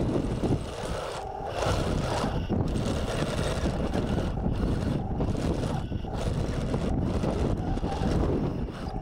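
Heavy wind buffeting the microphone over the running drive and tracks of a 1:16 scale Taigen RC tank grinding up a muddy bank.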